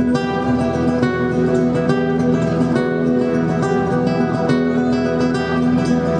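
Nylon-string acoustic guitar played solo, fingerpicked in a quick, continuous run of notes over a recurring low bass note.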